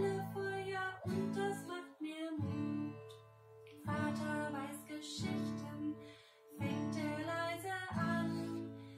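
A woman singing while strumming chords on an acoustic guitar in a steady rhythm.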